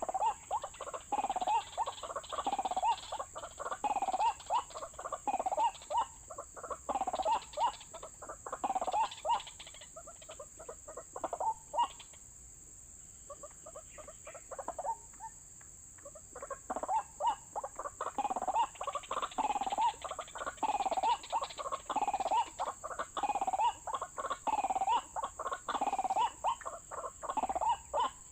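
White-breasted waterhen calling: repeated croaking 'ruak-ruak' notes, about two a second, in long runs with a pause of a few seconds in the middle. A steady high-pitched hiss runs underneath.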